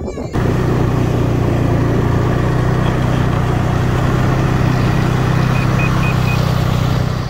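Snowmobile engine running at a steady speed, heard from on board, with a strong low drone. Four short faint high beeps sound near the end.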